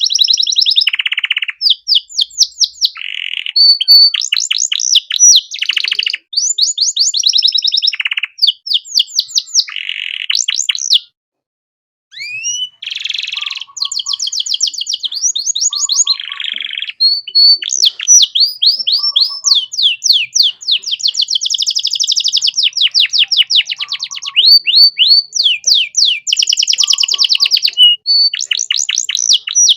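Domestic canary singing a long, varied song of rapid trills and rising whistled notes, broken by a pause of about a second about eleven seconds in.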